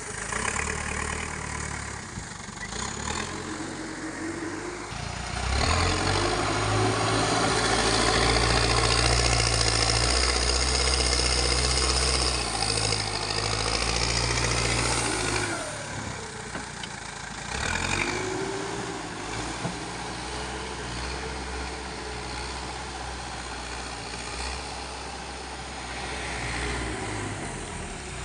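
Backhoe loader's diesel engine running steadily, revving up louder under load for about ten seconds in the middle, then dropping back to a lower, steady run, with a few short rising whines.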